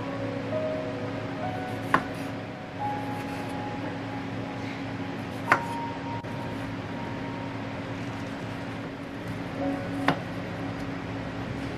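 Soft background music with held notes over a steady low hum, broken by three sharp kitchen knocks or clinks, about two, five and a half and ten seconds in.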